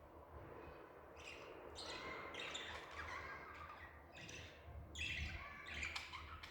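Budgerigar chirping and warbling in a run of short, quick bursts, starting about a second in.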